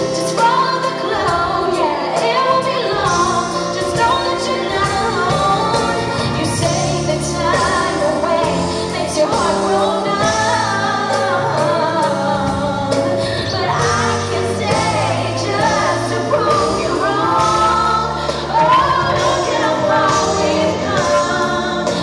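A woman singing a pop ballad live into a handheld microphone over instrumental accompaniment.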